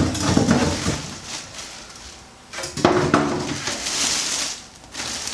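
PC case and its packaging being handled during unboxing: rustling of the wrapping with a few knocks and bumps.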